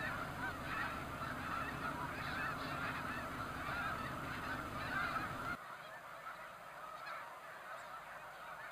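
Continuous honking of a large flock of snow geese, many overlapping calls blending into one steady chorus. A low rumble under it cuts off suddenly about two-thirds of the way through, and the honking goes on more faintly.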